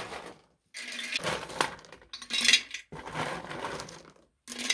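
Sugar-coated hard candies rattling and clinking against glass and the metal tin as a glass jar and a hand scoop through them, in about five short spells of a second or so with brief pauses between.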